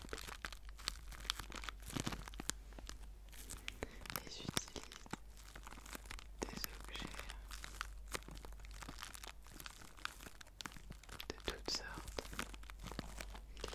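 Clear plastic zip-lock bag stuffed with white paper scraps, squeezed and crinkled between the fingers: a continuous run of irregular crackles and crinkles.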